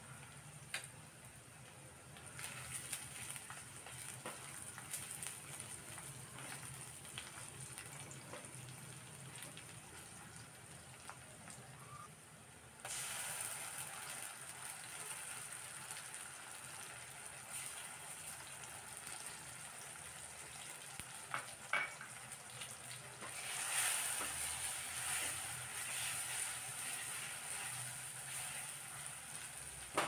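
Sliced onions and whole spices sizzling in hot oil in a stainless steel kadai. The sizzle is a steady hiss that gets louder about halfway through and swells again for a few seconds near the end, with a few light clicks.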